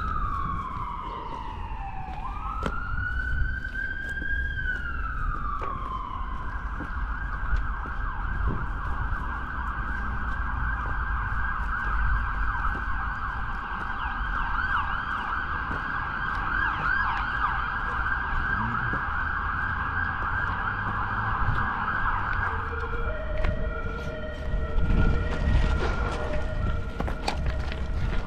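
Emergency vehicle siren on a slow rising and falling wail, switching after about six seconds to a fast yelp. About three-quarters of the way through it changes to steady held tones, then begins to wail again at the end, over a low traffic rumble.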